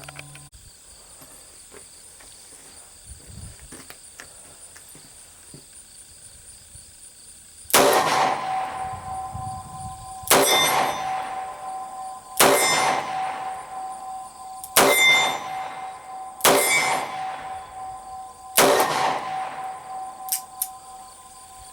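Six shots from a 2-inch Smith & Wesson Model 10-5 .38 Special revolver, fired one at a time about two seconds apart, each ringing out after the report, so the full cylinder is emptied.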